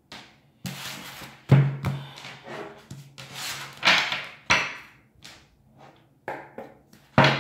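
Tarot cards being handled and shuffled, with rustling bursts of card noise and sharp knocks of the deck against a wooden table. The sharpest knocks come about a second and a half in and near the end.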